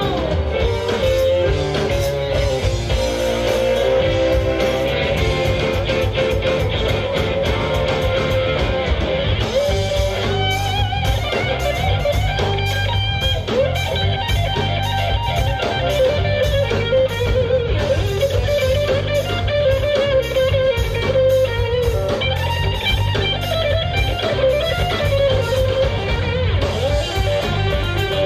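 Live band playing an instrumental passage: electric guitars over bass guitar and a drum kit, with a fiddle bowed along, a wavering lead melody running through it.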